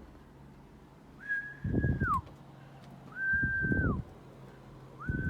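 A person whistling three flat, level notes about a second long each, every note dropping in pitch at its end, in a pigeon loft. Low pulsing pigeon cooing sounds under each note.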